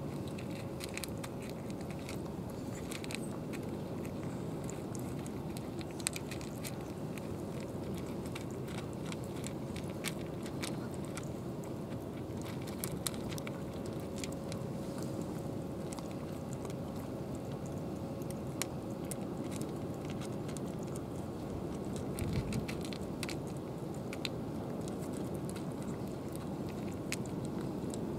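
Two cats chewing and crunching cat food from plastic trays, a steady run of small wet clicks and crunches.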